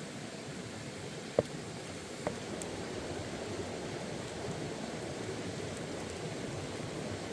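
Small whole octopuses sizzling on a hot stone slab: a steady hiss. Two sharp knocks come in the first half.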